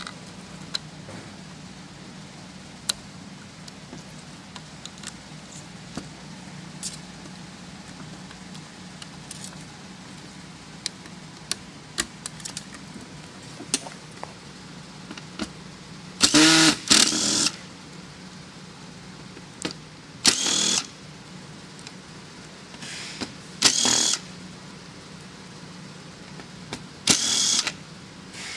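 Electric screwdriver running in short bursts, five times in the second half, backing out the screws that hold a TV main board. Before that come scattered light clicks and taps as cable connectors are unplugged, over a steady low hum.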